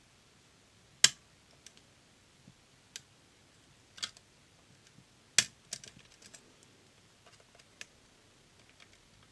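A few sharp metallic clicks and ticks from a hook pick working the pins inside a DOM System D lock cylinder. The two loudest clicks come about a second in and about five seconds in, with fainter ticks around them.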